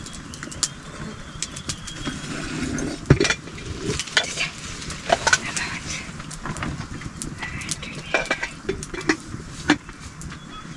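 Metal spoon clinking and scraping in a cooking pot, and the pot's metal lid being handled. A string of sharp clinks, the loudest about three seconds in.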